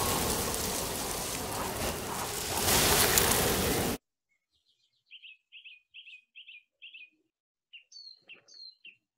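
A loud, even noise that cuts off abruptly about four seconds in. After a second of silence a small songbird chirps: a run of short chirps about two or three a second, then a few higher whistled notes near the end.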